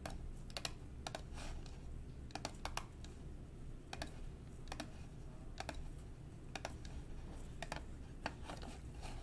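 Computer keyboard keys clicking in short, irregular runs, with a faint low hum underneath.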